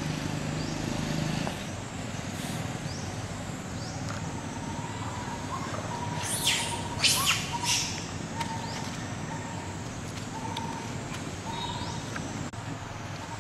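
Outdoor ambience with a steady hiss, broken about six seconds in by three short, high-pitched animal calls in quick succession.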